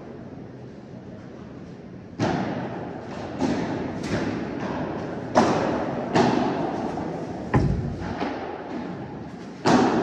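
Padel ball being struck by paddles and bouncing on the court during a rally. About seven sharp hollow knocks come at irregular intervals, the first about two seconds in, each followed by a short echo.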